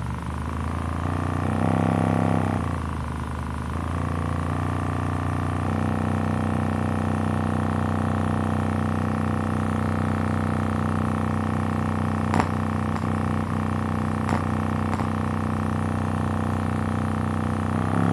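A 6.5-inch midbass speaker driver playing free-air with no enclosure, its cone making large excursions on a very low bass signal. It gives a loud, steady, buzzy drone full of overtones. A few sharp clicks come about two-thirds of the way through.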